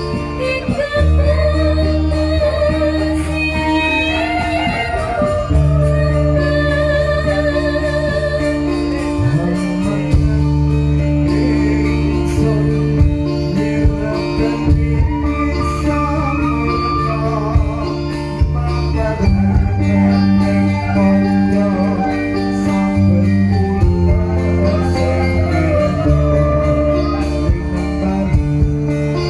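Amplified live music from a stage band playing gamelan-style metallophones and drums: held bass notes that shift every few seconds under a wavering sung melody, with light percussion strokes.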